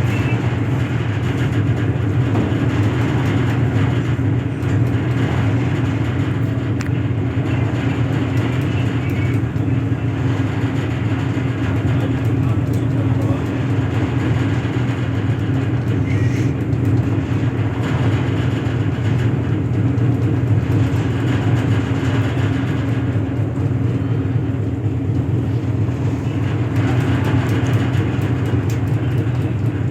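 An engine running steadily with a constant low drone, not changing in speed.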